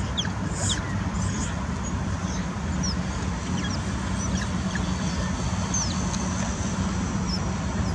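Smooth-coated otters giving scattered short, high squeaks and chirps as they wrestle, over a steady low hum of road traffic.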